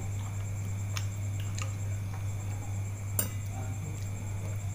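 A few light clicks and clinks of a small fork picking at food in a plastic wrapping, the sharpest about three seconds in, over a steady low hum.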